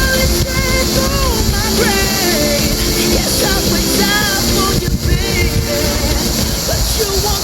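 Pop song with a singing voice playing as background music over a steady low rumble.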